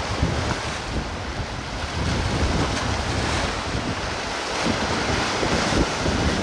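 Wind blowing on the microphone: a steady rushing with uneven low rumbling gusts, a little stronger in the second half.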